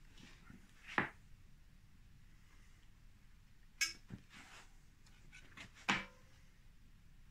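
Small wooden pieces and hand tools being handled and set down on a workbench: a few sharp light knocks and clicks, the loudest about a second in, near the middle and about six seconds in.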